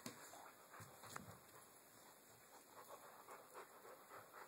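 Dogs panting faintly during rough rope play.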